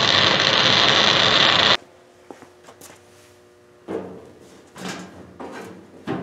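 Arc welding on the kart's steel tube frame, a steady loud crackling hiss that cuts off abruptly under two seconds in. Then a few faint clicks, followed from about four seconds in by short bursts of shuffling and light knocks as a person climbs into the rusty steel wheelbarrow-bucket seat of the go-kart chassis.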